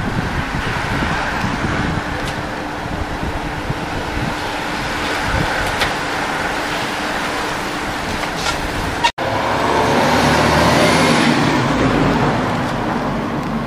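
Outdoor road noise with wind rumbling on the microphone; after an abrupt cut about nine seconds in, a louder rush of passing road noise swells and then fades.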